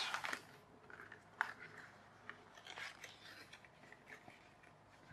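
Clear cellophane toy packet crinkling and rustling as it is opened and the card-backed toy is pulled out, with faint scattered clicks and crackles from the handling.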